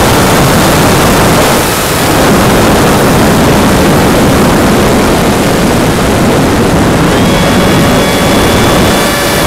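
Loud rush of wind and propeller noise on the onboard camera of a Go Discover FPV plane in flight. About seven seconds in, a thin whine from its upgraded electric motor rises and then holds steady.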